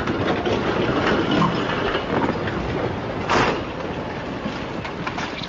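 Landslide: a dense rushing rumble of earth and rock sliding, with a louder crash about three seconds in.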